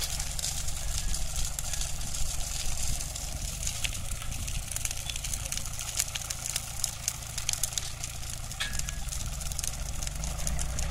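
Small farm tractor's diesel engine running steadily at low revs, with a brush fire of pruned olive branches crackling close by.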